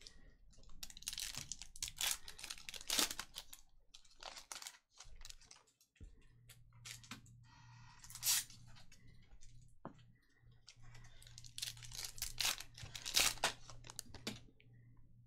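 Trading cards and foil pack wrappers being handled: two spells of quick clicks and rustles as cards are flipped and shuffled, with a short crinkle about eight seconds in.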